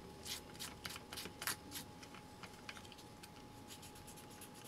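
Faint scraping and clicking from fingers working small parts by hand, with a cluster of clicks in the first two seconds, over a faint steady whine.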